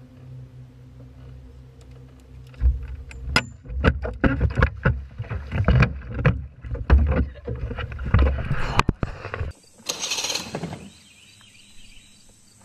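Irregular knocks and thumps from handling on the deck of a bass fishing boat, over a low steady hum. A short hiss follows after a cut near the end.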